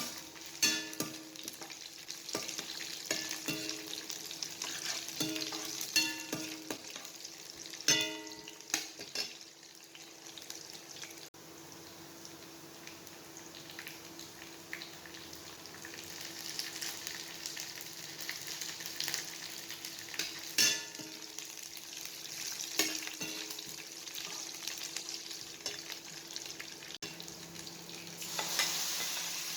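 Food sizzling in hot oil in a pan as it is fried and stirred, with a metal spatula clanking against the pan now and then, mostly in the first ten seconds and again around twenty seconds in. A faint steady hum runs underneath.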